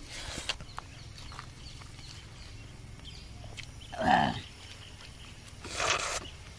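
A short, loud grunt with a falling pitch about four seconds in, then a breathy rushing noise near the end, over faint steady hiss.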